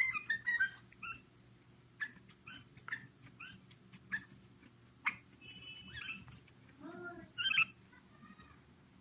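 A bulbul singing: a quick run of chirps at the start, then separate short whistled notes and chirps, with a brief held note about halfway and a louder burst of song near the end.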